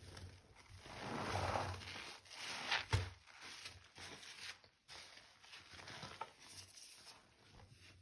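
Gloved hand squeezing and swishing a wet clump of powder in sudsy water in a sink, an irregular wet rubbing and sloshing with a sharp click about three seconds in.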